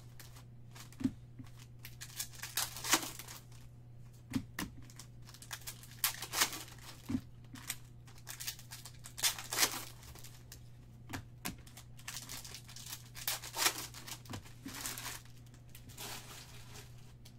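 Foil trading-card pack wrappers being torn open and crinkled by hand, in repeated short bursts of rustling, over a steady low hum.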